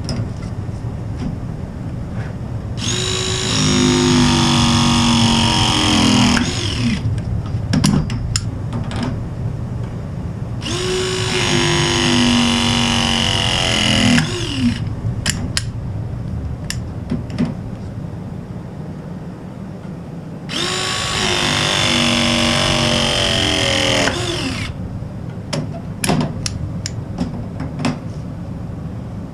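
Battery-powered ProPress crimping tool running three press cycles, each a few seconds of motor whine that shifts in pitch as the jaws close on a fitting. Clicks and knocks of handling come between the cycles.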